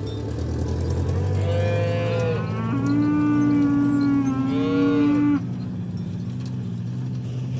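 A cow mooing: one long, drawn-out moo of about four seconds that cuts off suddenly, over a steady low hum.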